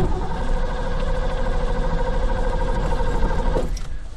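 A car's starter motor cranking the engine with a steady whine for about three and a half seconds, starting with a sharp click, then stopping without the engine catching. The car will not start, which the driver puts down to something getting wet in the car wash.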